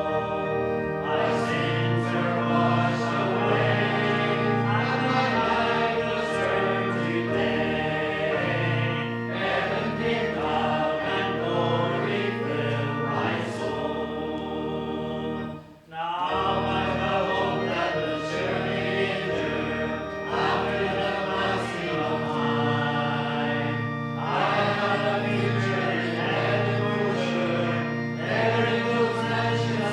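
Congregation singing a hymn, with a brief break between lines about halfway through.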